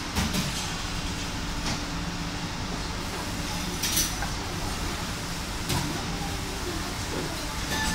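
Steady low mechanical hum with an even hiss, broken by a few faint clicks.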